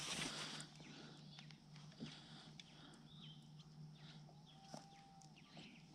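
Near silence: scattered faint clicks, a few faint high chirps about three seconds in, and a short faint whistle near the end.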